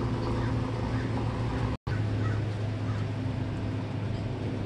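Steady low hum of an idling vehicle engine, with a brief total dropout of the sound a little under two seconds in.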